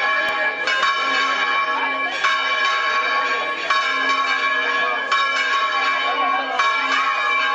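Bells ringing, struck about every one and a half seconds, each stroke ringing on and overlapping the next.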